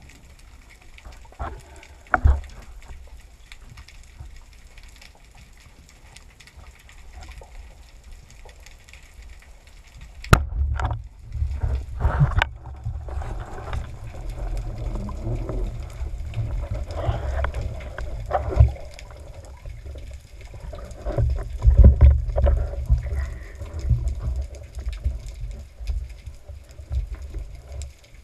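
Water noise picked up by a camera during a spearfishing dive. At first there is a faint hiss with a couple of knocks. A little over a third of the way in, a sharp click comes, followed by a heavy, uneven rumble with gurgling and splashing.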